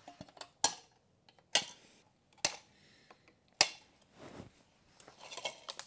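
Side cutters snipping plastic zip ties: four sharp snaps about a second apart, with fainter clicks of handling in between.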